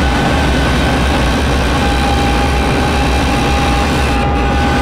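A loud, steady, low rumble with faint held tones above it, one joining about two seconds in.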